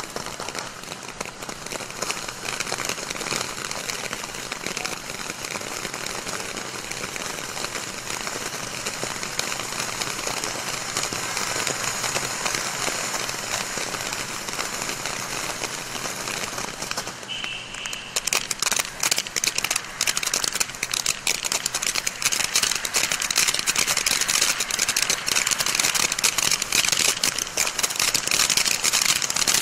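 Aladdin's Cave fountain firework burning, hissing steadily as it sprays sparks. Partway through it breaks into dense, rapid crackling that is a little louder.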